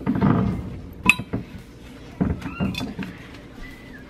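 A glass vase is being wiped with a paper towel: a rubbing sound at first, then a sharp, ringing glass clink about a second in and a few lighter glass knocks.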